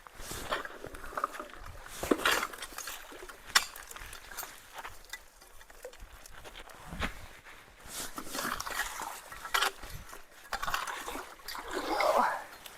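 Shallow creek water trickling and sloshing at a culvert while leaves and gravel are cleared from it, with irregular knocks, scrapes and splashes as the debris is worked loose.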